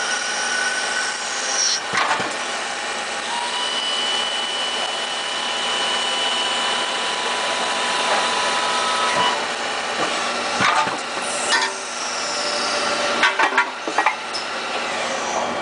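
Ergomat TBA 60 CNC lathe machining a plastic fitting: steady machine noise with thin whining tones that come and go, and several sharp clicks, bunched near the end.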